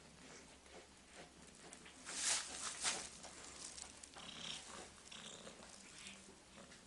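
Domestic cat sounds, with two loud, short, noisy bursts about two seconds in and fainter scattered sounds after them.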